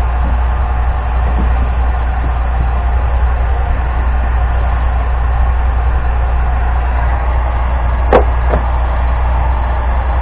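Heat gun blowing steadily while heating PVC pipe to soften it for bending, with a sharp click about eight seconds in.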